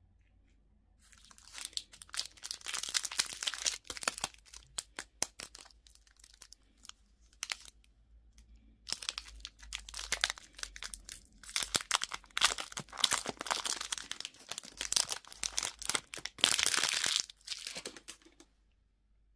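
Candy wrapper being crinkled and torn open by hand in two long stretches of dense crackling, with scattered sharp crackles between them.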